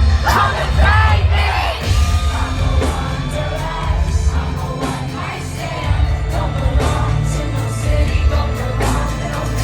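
Live pop concert: a woman singing over a heavy, bass-driven band mix, with the crowd yelling and singing along.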